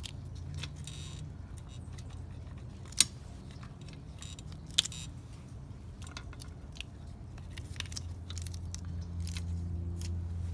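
Metal clicks and clinks of a motorcycle roller chain and hand tools being handled, with two sharp, louder clicks about 3 and 5 seconds in.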